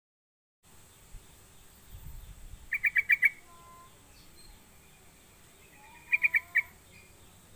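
Yellow-vented bulbul (trucuk) calling: two short bursts of four or five rapid, sharp repeated notes, the first about three seconds in and the second about six seconds in, with a few faint, softer whistled notes between them.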